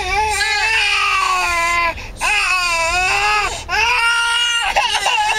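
Overtired 8-month-old baby crying in long, wavering wails. There are short breaths about two seconds in and again near four seconds.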